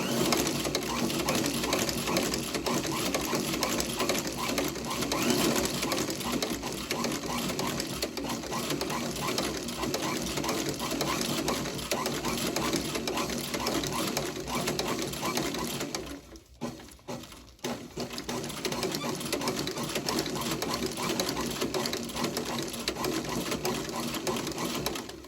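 Sole-stitching sewing machine running fast, stitching a new sole to a shoe's sidewall. It stops briefly about sixteen seconds in, then starts again.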